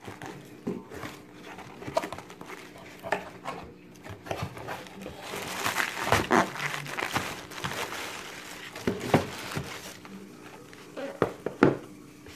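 Cardboard shipping box being opened and handled, with plastic air-pillow packing crinkling as a hand rummages inside, densest about halfway through. A few sharper knocks of boxes against the wooden floor come later on.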